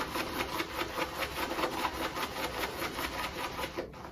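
Stiff-bristled shaving brush whisking soap lather in quick, even strokes, about five or six a second, stopping just before the end.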